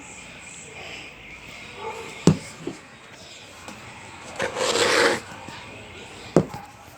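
Handling noises: a sharp knock, about a second of rustling, then another sharp knock.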